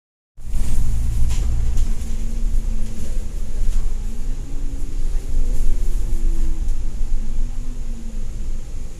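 Bus engine and drivetrain heard from inside the moving bus: a steady low rumble with a faint whine that rises in pitch about four seconds in and then wavers as the bus drives on. A few light clicks or rattles come early.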